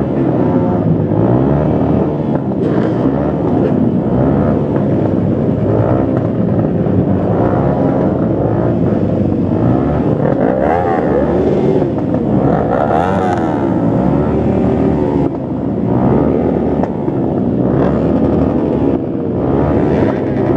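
Several motorcycle engines running together, their pitches rising and falling as they rev and overlapping one another without a break.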